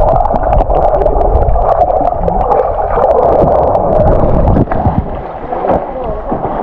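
Swimming-pool water heard underwater through a GoPro: a loud, muffled rush and gurgle of water and bubbles as a swimmer kicks past. About four and a half seconds in it drops to quieter sloshing as the camera comes up to the surface.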